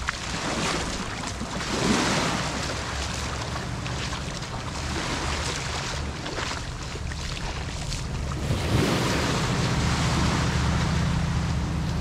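Gulf of Mexico surf: small waves breaking and washing up the sand, swelling about two seconds in and again from about nine seconds, over a steady low hum.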